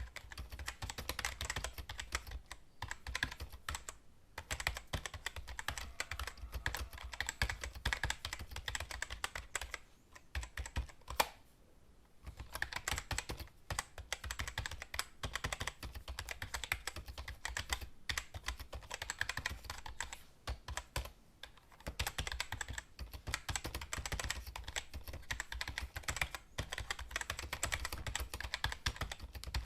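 Fast typing on a computer keyboard: a dense, uneven run of key clicks broken by a few brief pauses, with one louder key strike about eleven seconds in.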